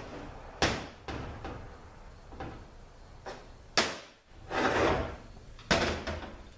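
Metal transmission parts and tools handled on a workbench: three sharp clunks, about half a second in, near four seconds and near six seconds, with a longer scraping rustle between the last two.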